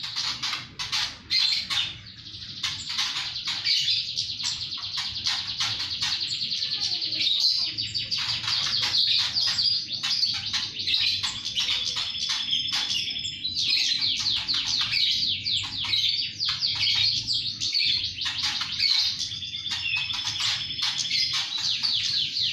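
Flowerpecker (cabe-cabean) calling in a long, unbroken run of rapid high chirps, with a couple of short held whistled notes about halfway through and again near the end.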